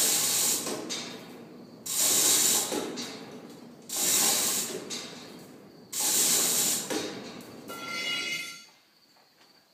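Steel cattle loading chute being shoved four times, about two seconds apart, each push a harsh metallic scraping rattle that fades quickly. Near the end there is a brief ringing metal squeal.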